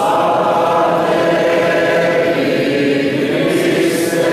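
Priests and congregation singing together, a sung response of the Catholic Mass, many voices holding long notes.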